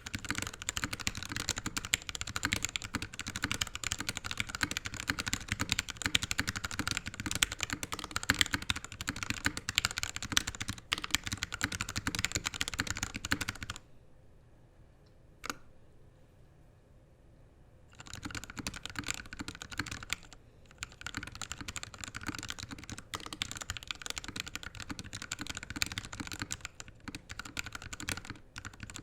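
Rapid typing on a NovelKeys NK65 custom mechanical keyboard with a polycarbonate case, lubed Gateron Ink switches and DSA PBT keycaps, with a pause of a few seconds midway broken by a single keystroke. The builder judges this sound a tad overlubed, with some stabilizers still rattly.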